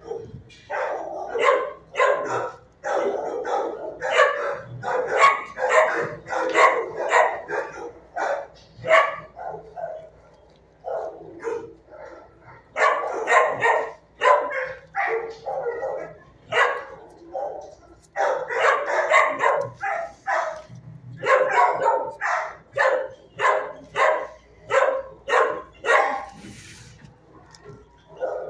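Shelter kennel dogs barking over and over in rapid runs of barks, with a couple of brief lulls.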